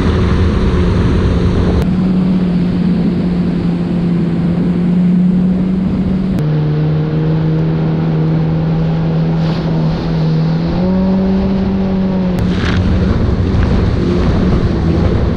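Yamaha WaveRunner jet ski running at speed: a steady engine drone over rushing wind and water spray. The engine pitch steps lower about six seconds in and back up a little before eleven seconds.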